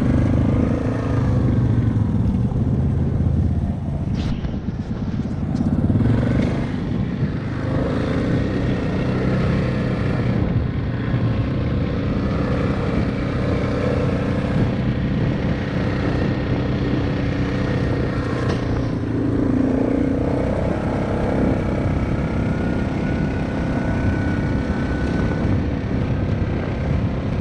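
ATV engine running under throttle while riding, its pitch rising and falling as the rider eases on and off the gas, with a few brief knocks from the machine.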